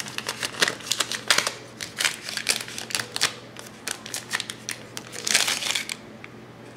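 Used adhesive lint-roller sheet being crumpled up to throw away: a run of irregular crinkling and crackling clicks that stops about six seconds in.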